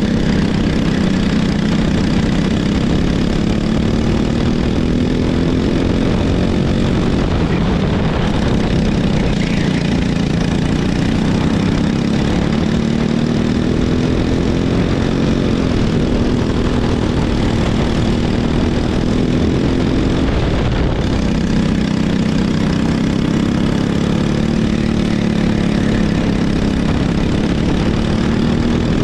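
Racing go-kart engine at full race pace, its pitch climbing for several seconds at a time and then dropping back, about four times, as it revs out and is backed off for corners.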